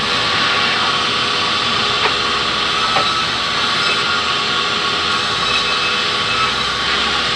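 Sawmill band saw running steadily and ripping tropical hardwood planks as they are fed through, with two short knocks about two and three seconds in.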